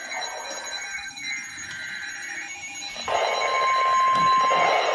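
Emergency Alert System alert starting: buzzy digital header data bursts, then about three seconds in a single-pitch, steady warning tone that announces a new alert, here a flash flood warning.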